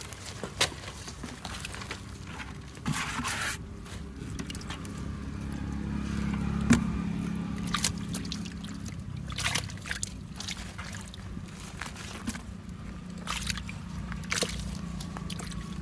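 Hands splashing and scooping in a shallow pool of muddy water while grabbing eels, with small splashes, drips and scattered scraping clicks.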